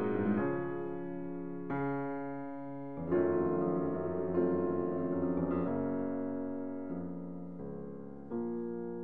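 Background piano music: slow chords, a new one struck about every second and a half and left to fade.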